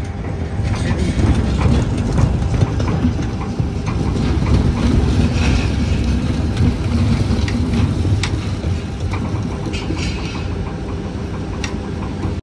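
A load of sugar beets sliding and tumbling out of a tractor trolley tipped up on a lift: a steady heavy rumble with many small knocks and clatters.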